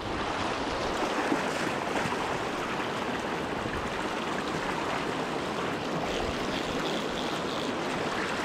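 River current rushing steadily, an even water noise with no breaks.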